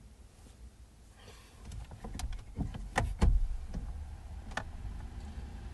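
A series of clicks and knocks, with two louder thumps about three seconds in, from someone moving about and handling things inside a car, over a low steady rumble.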